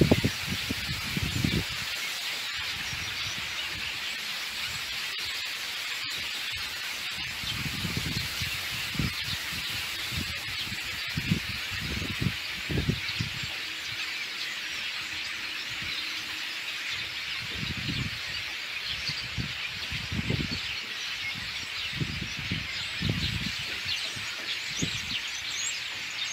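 Wind over open water: a steady hiss, with irregular low gusts buffeting the microphone.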